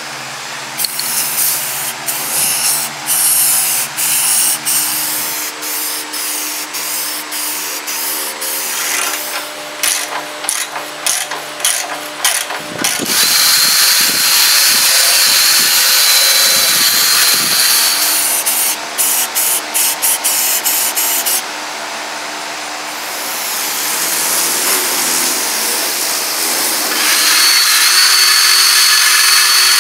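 Cordless drill spinning a wire brush wheel against rusty sheet steel, stripping off surface rust. The motor whine rises and falls as the brush is pressed on and eased off, under a rough, scratchy scraping that grows louder about halfway through and again near the end.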